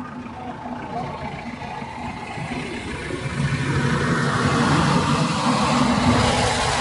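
A motor vehicle drawing close on the road, its engine and tyre noise growing louder from about three seconds in.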